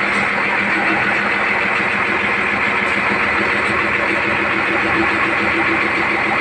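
A motor running steadily: an even mechanical hum with a loud hiss over it.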